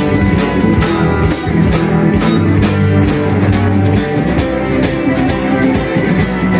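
Instrumental break of a song: guitar over bass with a steady drum beat, no vocals.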